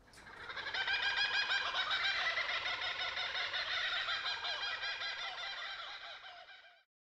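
A chorus of many birds chirping and singing at once. It fades in over the first second and fades out shortly before the end.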